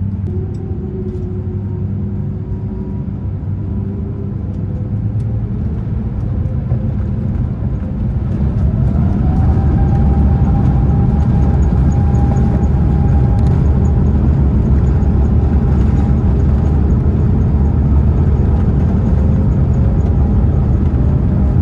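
Airbus A350-900's Rolls-Royce Trent XWB engines heard from inside the cabin: a low rumble with a whine. About eight seconds in, the whine rises in pitch and the sound grows louder as the engines spool up toward take-off thrust, then holds steady.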